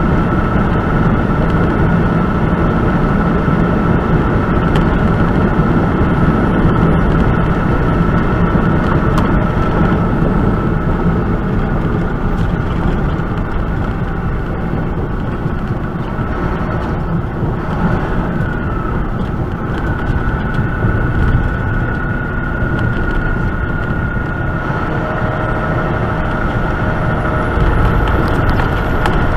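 Semi truck cruising at highway speed, heard from inside the cab: a steady engine drone and road noise, with a faint, steady high whine running through it.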